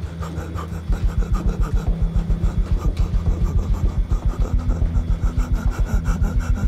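A low, fast, even throbbing pulse of about six beats a second, starting about a second in over a steady low hum.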